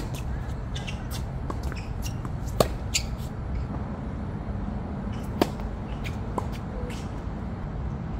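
Tennis rally on a hard court: sharp pops of racket strikes and ball bounces, a few loud ones a couple of seconds apart among fainter ticks, over a steady low rumble.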